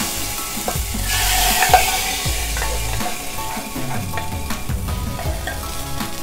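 Hot tempering of mustard seeds and curry leaves sizzling as it lands in a pot of curry, the hiss strongest in the first two seconds. A spatula scrapes and taps the tempering out of the small pan.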